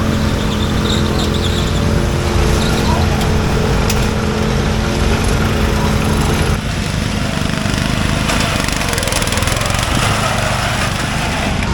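Riding lawn mower engine running at a steady pitch. About two-thirds of the way through, the sound changes abruptly to a rougher, noisier engine sound.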